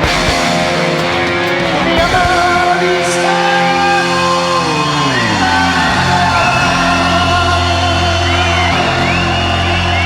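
Live rock band playing, with a singer's drawn-out, wavering vocal over sustained held notes. About four seconds in, the held notes slide down in pitch.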